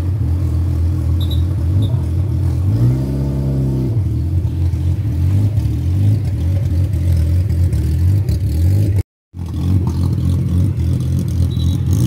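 Off-road 4x4 vehicle engine running steadily close by, with a short rev about three seconds in. The sound cuts out for a moment near nine seconds.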